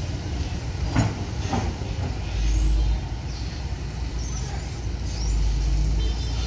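Diesel engine of a CAT 320D long-reach excavator running steadily, rising twice in low rumbling swells as the long arm lowers the bucket. A sharp knock about a second in, followed by a weaker one.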